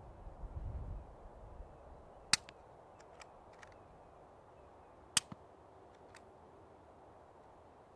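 Two suppressed rifle shots about three seconds apart, firing 220-grain subsonic rounds through an AB Suppressor Raptor 7.62 mounted reflex-style, heard from 50 yards away. Each is a short sharp crack followed closely by a fainter click.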